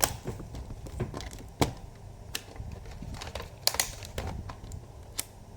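Irregular plastic clicks and light knocks of a laptop being handled and its lid closed, with a few sharper taps among softer rustling.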